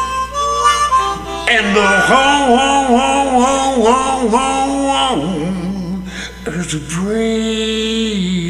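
Music: a harmonica playing long, wavering held notes in a song.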